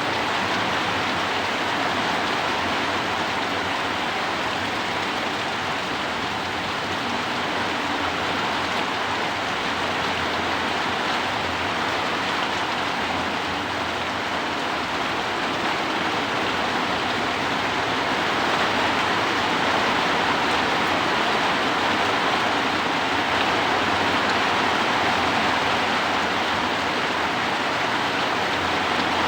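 Heavy rain falling with strong wind: a steady, dense hiss that swells slightly in the second half.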